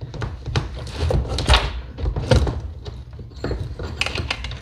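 Irregular clunks, knocks and clicks of metal and plastic chainsaw parts being handled as the bar and chain are worked off the saw.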